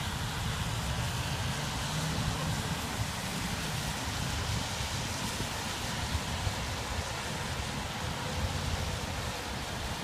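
Police cruisers passing one after another on a wet road: a steady hiss of tyres on wet pavement with a low rumble of traffic.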